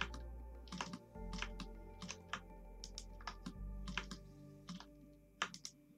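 Computer keyboard and mouse clicks, irregular and sharp, about a dozen or more, over soft ambient background music with deep held bass notes.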